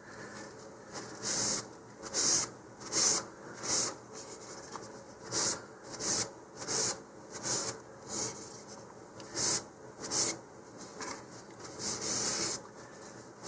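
Paper towel rubbing over a plastic rocket nose cone in quick wiping strokes, about one to two a second, starting about a second in, clearing sanding dust off the sanded filler putty.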